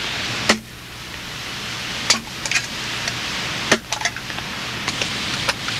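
A hatchet striking an aluminium can laid on a log: a string of sharp metallic clinks at irregular intervals, about a second or less apart, over a steady hiss.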